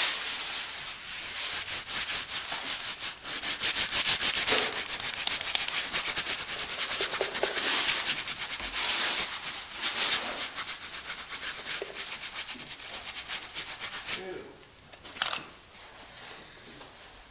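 Rapid, scratchy back-and-forth rubbing strokes on a woodblock and paper, which die down about fourteen seconds in, with a couple of short scrapes after.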